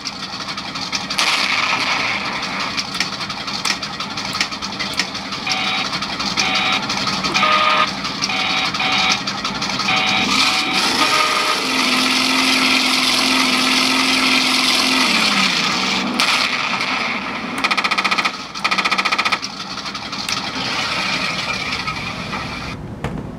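RC tank sound effects from a Benedini Mini sound module, played through two small mid-range speakers and a mini subwoofer: an engine running with rapid bursts of machine-gun fire. There are short beeps between about five and eleven seconds in, and a held tone from about twelve to fifteen seconds that slides down in pitch.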